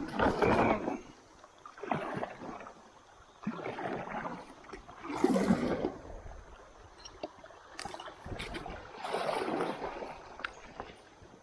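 Water splashing and gurgling in a run of separate swishes, one every second or two.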